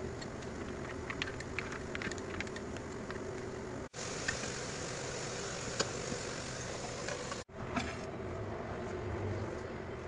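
Steady background hum of kitchen work, with scattered light clicks and taps of utensils handling food. The sound drops out briefly twice, at cuts between clips.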